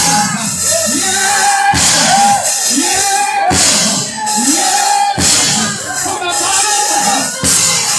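Gospel church music: a band with drum kit playing, a short melodic line repeating over and over with regular drum strikes.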